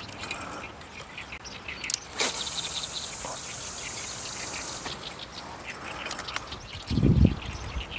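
Fishing rod and reel being handled during a cast: a sharp click about two seconds in, then about three seconds of hissing, and a few low bumps near the end. An insect trills steadily in the background.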